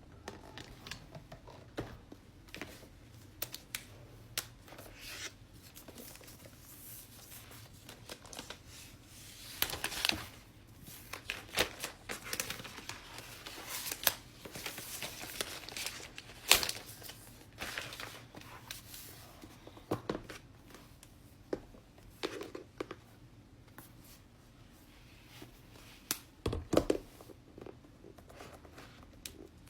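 Laptop packaging being handled and opened: irregular tearing and crinkling of wrapping, with many sharp clicks and taps.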